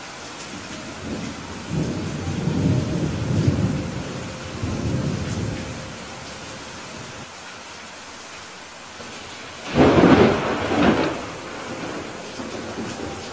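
Steady rain hiss with two rolls of thunder: a low rumble that swells from about one second in and fades by about six seconds, then a louder, sharper thunderclap about ten seconds in that dies away over a second or so.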